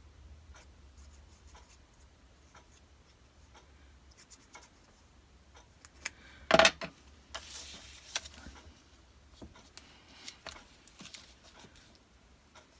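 Quiet handling of a small paper label and a plastic glue bottle while glue is applied and the label is pressed down: light taps and soft rustles, with one short, louder sound about halfway through and a brief papery rustle right after it.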